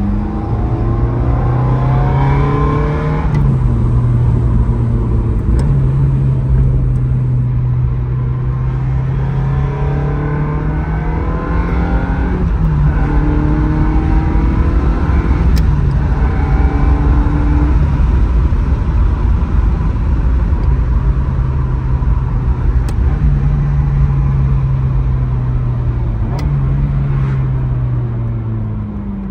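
Ferrari F355's 3.5-litre V8 engine heard from inside the cabin under way. Its note climbs in pitch and drops back at several gear changes, with long steady cruising stretches in between, over a constant rumble of road and wind noise. Near the end the note rises again as the car pulls away.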